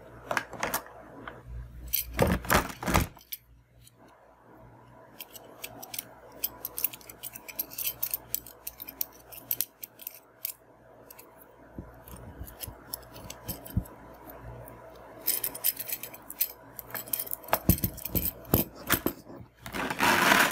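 Hands handling a microphone's plastic holder and tripod stand: clicks, taps and rattles of hard plastic and metal parts. A flurry of clicks comes about two seconds in, scattered taps follow, and a dense run of rattling comes near the end.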